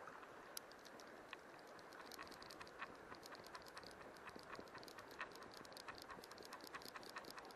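Fly reel's click ratchet ticking in quick, irregular clicks, thickening to several a second about two seconds in, as line runs through the reel while a hooked fish is played. Underneath is a faint, steady river hiss.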